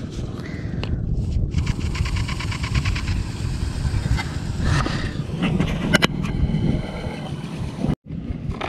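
Overhead fishing reel letting out line as the bait sinks, its spool giving a fast, even ticking for a few seconds, with a couple of sharper clicks after it. A steady low rumble runs underneath.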